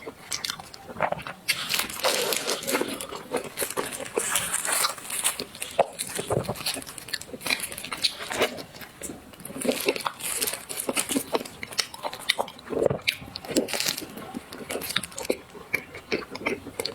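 A person biting into and chewing crunchy desserts, with crisp crunches and crackles coming thick and irregular throughout.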